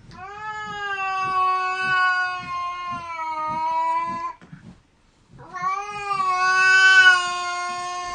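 A cat yowling in two long, drawn-out wails, the first about four seconds long and the second about three, with a short break between, each sagging slightly in pitch: the warning yowl of a cat squaring off for a fight.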